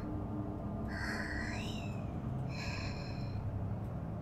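A woman's soft breaths close to the microphone: a gasp-like breath about a second in, with a brief voiced rise and fall at its end, then a second breath about two and a half seconds in. Under them a steady low ambient drone.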